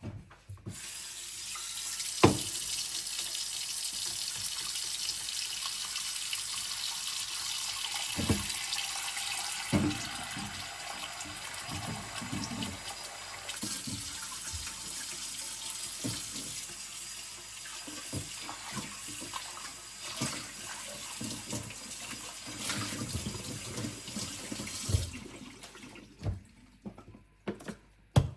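Kitchen tap running into a sink while a stainless steel skillet is pre-rinsed under it, with a few sharp clanks of the pan. The water shuts off near the end, leaving a couple of knocks.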